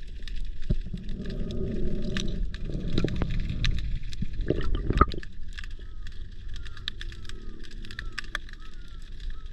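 Underwater sound picked up through a camera housing in a shallow estuary: a steady crackle of sharp clicks typical of snapping shrimp, with a louder low swishing rumble of water moving past the camera from about one to five seconds in, ending in one sharp knock.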